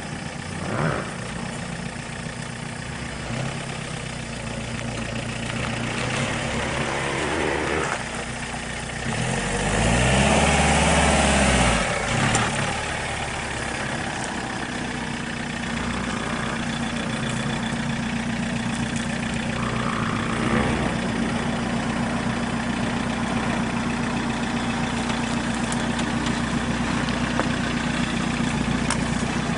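Second-generation Toyota RAV4's engine running at low revs on a dirt track, revving up and back down once about ten seconds in, then settling into a steady idle.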